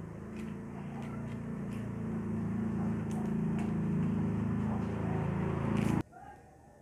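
Steady low motor hum, growing slightly louder and cutting off abruptly about six seconds in, over faint snaps of moringa leaves being stripped from their stems by hand.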